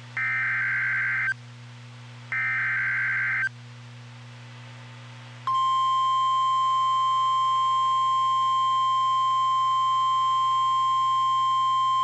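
NOAA Weather Radio Emergency Alert System signal: the last two of three SAME digital header bursts, harsh data screeches about a second long and a second apart. About five and a half seconds in, the steady 1050 Hz warning alarm tone starts and holds, announcing a new warning.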